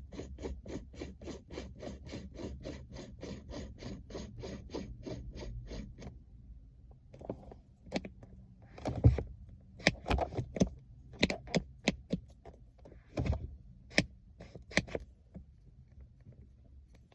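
A steady rapid ticking, about three to four a second, over a low hum. It stops about six seconds in. Then come irregular clunks and knocks as the Ford Mustang S550's manual gear shifter, topped with a new weighted shift knob, is moved through the gears, reverse included.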